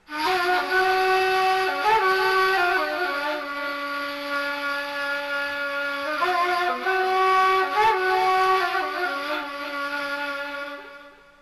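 Solo wind instrument playing a slow melody of long held notes with quick ornaments between them, the phrase repeating about halfway through; it starts abruptly and fades out near the end.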